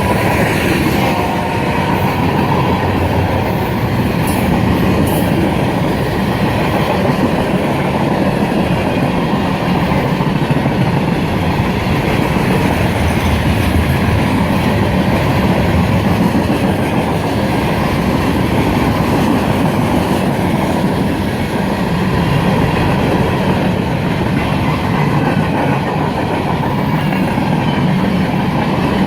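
Freight train cars rolling past on the track, with a steady loud noise of wheels and cars that does not let up.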